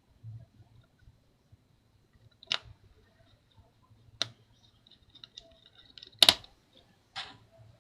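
Small precision repair tools and tiny screws clicking and tapping against a MacBook Pro's aluminium case while the screws are set back in place. There are four sharp clicks, spaced a second or two apart, and the loudest is a double click about six seconds in.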